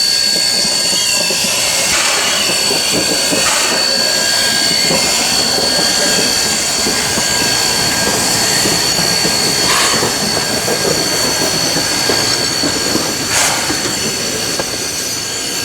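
Steam locomotive A428 running, a steady hiss of steam over the rumble of the train, with a few sharp clanks about 2, 3.5, 10 and 13.5 seconds in.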